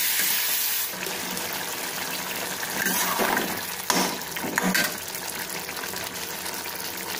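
Chicken in a wet spice masala sizzling in a metal kadai while being stirred and fried down, with a few scrapes of a metal spatula against the pan about midway.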